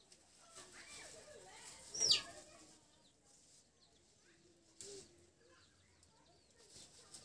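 Birds and chickens calling, with one loud, sharply rising chirp about two seconds in and a short knock near five seconds.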